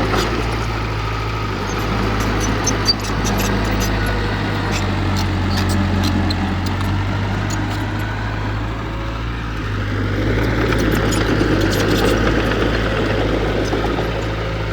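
Diesel engine of heavy earthmoving machinery running steadily, with light clicking and clatter over it and one sharp knock about three seconds in.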